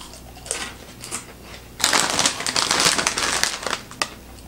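Shiny plastic snack bag crinkling loudly as it is picked up and handled, for about two seconds starting about two seconds in. A few faint clicks come before it.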